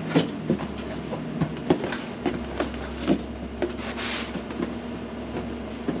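Hands rummaging inside a large cardboard box: scattered knocks, taps and rustling of packaging, with a louder rustle about four seconds in, over the steady hum of an air conditioner.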